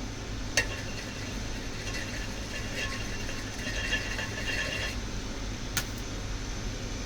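Steady electric fan hum with two sharp clicks of kitchen tools, one early and one near the end, and faint high clinking in the middle.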